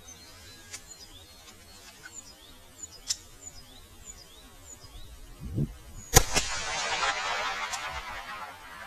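A single shot from a Smith & Wesson 1911 Pro Series 9mm pistol about six seconds in, slowed to one-third speed, its report trailing off over about two and a half seconds.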